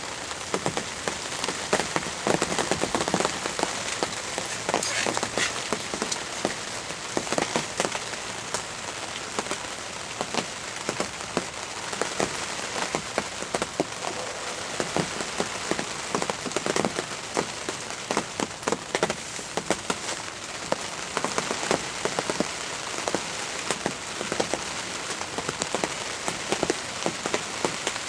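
Steady rain, with many close drops ticking sharply on a nearby surface.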